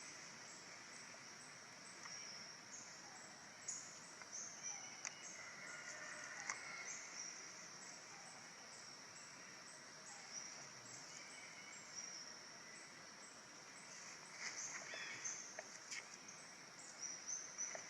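Faint outdoor ambience: many short, high-pitched chirps repeating over a steady high hum, with a few soft clicks.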